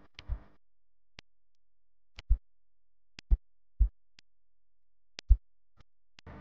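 Background music in a sparse passage: a sharp tick followed by a low drum thump, about once a second, with dead silence between the beats.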